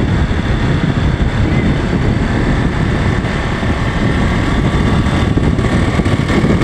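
Motorcycle running steadily down a road, its engine mixed with wind rushing over the microphone.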